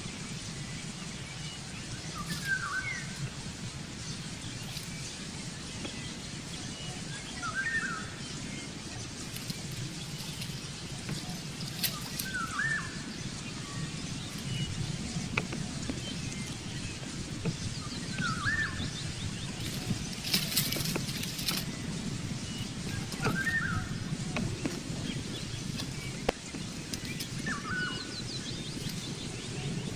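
A bird giving a short call about every five seconds, six times in all, over steady outdoor background noise.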